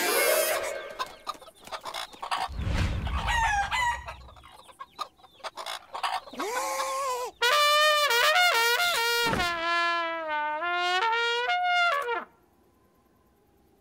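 Cartoon sound effects: a few seconds of short squeaky noises and a low thud, then a toy trumpet blares one long wavering, wobbling note for about six seconds that cuts off suddenly.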